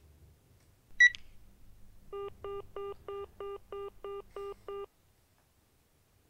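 A mobile phone gives one sharp high beep, then a low phone-line tone pulses quickly nine times in the earpiece before cutting off suddenly: a call that does not get through.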